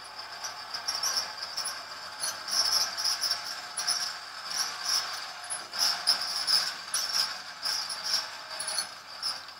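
The 90 W electric motor and roughly 1800:1 reduction gear train of a student-built winch, running under load as it drives a 160 kg weight down. It makes a steady high whine with an uneven, pulsing gear rattle, and stops at the very end as the weight lands.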